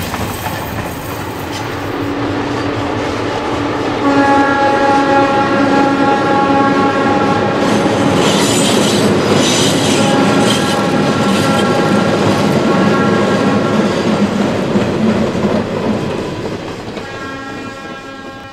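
Metre-gauge ALCo DL537 diesel locomotives' air horn sounding long single-note blasts of about four seconds each, over the rumble and clatter of the train's wheels. A burst of high wheel squeal comes about eight seconds in, and the sound fades out near the end.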